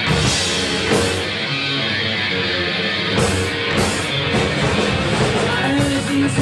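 Ska punk band playing live, loud electric guitar over bass and drums. There are sharp accents at the start, about a second in, and twice more a little after three seconds.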